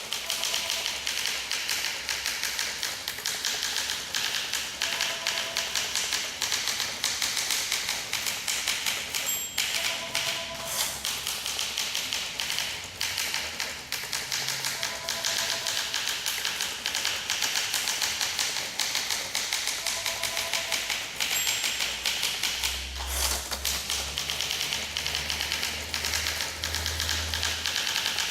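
1958 Olympia SM2 manual typewriter being typed on: a fast, continuous run of keystroke clacks.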